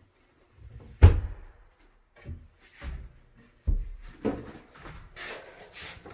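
Cabinet doors being opened and shut: a sharp knock about a second in, a couple of lighter knocks and a low thump, then rustling and shuffling near the end.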